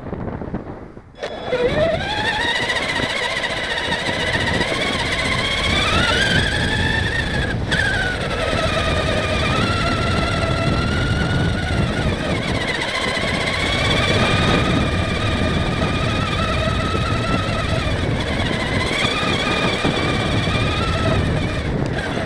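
Traxxas Summit RC truck's electric motor and gearbox whining as it drives through snow. The whine rises in pitch about a second in as the truck accelerates, eases slightly, then climbs again near the end before cutting off, over a steady low rumble.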